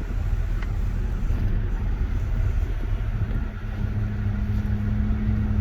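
An engine running with a steady low rumble; a steady low hum settles in about three and a half seconds in.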